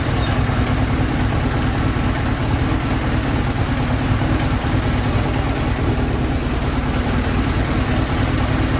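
Kawasaki ZX-7R's 750 cc inline-four engine idling steadily, just after starting.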